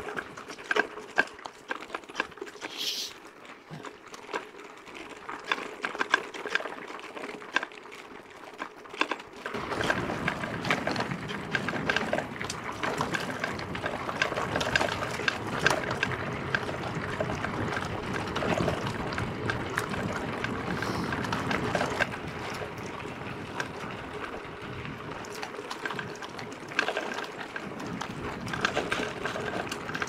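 Mountain bike rolling over a rough forest dirt track: quick clicks and rattles from the bike and tyres on loose ground, turning into a louder, denser rushing noise about ten seconds in.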